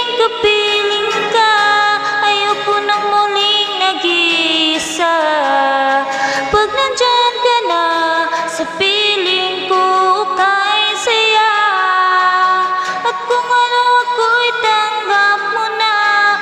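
A woman singing a slow ballad into a handheld microphone, with long held notes that waver, accompanied by an acoustic guitar.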